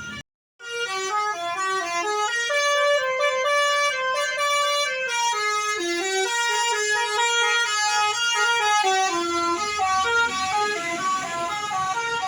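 Bus 'telolet' horn: a multi-tone musical horn playing a melody, several pitched notes sounding together and stepping up and down. It starts after a brief silent gap about half a second in.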